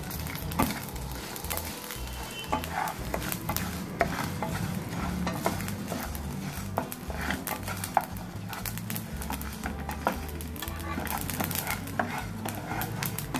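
Wooden spatula stirring and scraping dry-roasting fenugreek, mustard and coriander seeds around a nonstick pan, with many small clicks and a light sizzle from the seeds, over a steady low hum.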